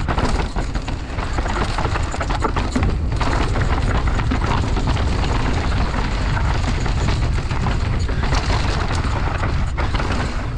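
Mountain bike descending a loose dirt trail at speed: heavy wind buffeting on the camera's microphone, with tyres on loose dirt and a steady run of rattles and knocks from the bike.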